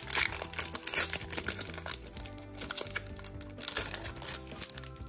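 Foil booster-pack wrapper crinkling as it is handled and torn open, loudest near the start and again about four seconds in, over steady background music.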